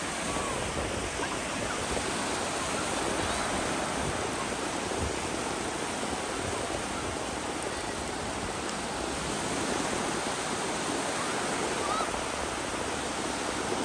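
Surf washing steadily onto a sandy beach, an even rushing of breaking waves.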